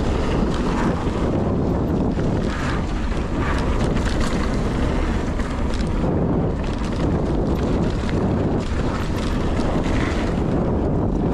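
Wind buffeting the microphone of a mountain bike descending a dirt trail at speed, over the steady rush of the tyres, with frequent short clatters from the bike over rough ground.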